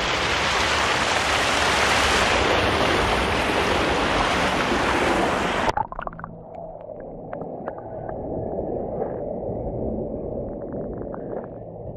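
Creek water rushing, picked up close by a GoPro on a fishing pole. A little under halfway through the camera goes under the surface and the sound turns suddenly muffled and quieter: the dull underwater wash of the current with scattered faint clicks.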